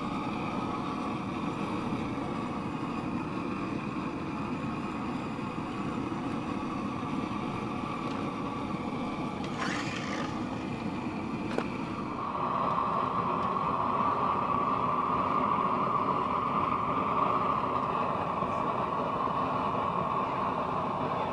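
Hose-fed propane torch burning steadily as its flame chars the surface of a timber beam. About twelve seconds in, a louder steady engine takes over: a loader tractor running.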